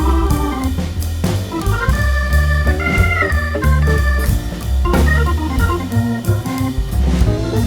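Background music led by an organ-like electronic keyboard over a steady bass line and beat.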